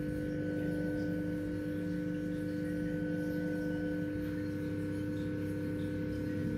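Steady electrical hum: a few held, unchanging tones over a low background rumble.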